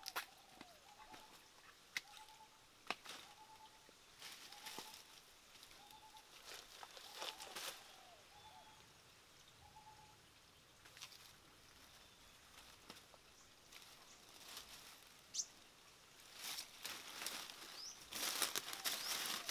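Dry banana leaves and stems crackling and rustling as they are handled and stepped on, with a denser run of crunching footsteps near the end. A bird repeats one short note about every 0.7 s through the first half, and another gives a brief rising chirp.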